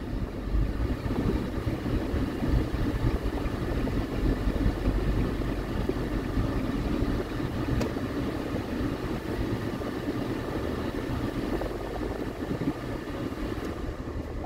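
Steady engine and tyre noise of a car driving slowly along a city street, heard from inside the cabin.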